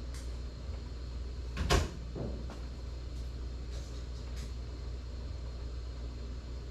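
A single sharp knock about two seconds in, followed by a softer knock, over a steady low hum.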